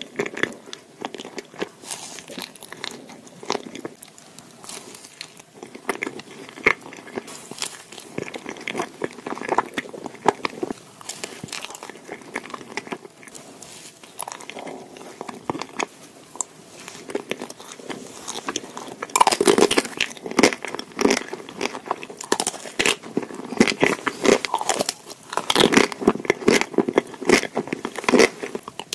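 Close-miked biting and chewing of ice cream: an ice cream sandwich with soft wafer biscuits, with irregular crunches. In the last third, a chocolate-shelled ice cream bar is bitten and the crunching grows louder and denser.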